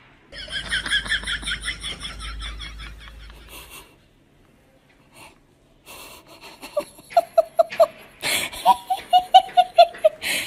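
Laughter in quick repeated bursts, in two runs with a short pause between: first high and wheezy, then lower and louder in a rhythmic 'ha-ha-ha'.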